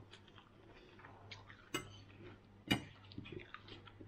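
A metal fork clicking against a ceramic plate while picking up salad: two sharp clinks, about two and three seconds in, with fainter ticks between.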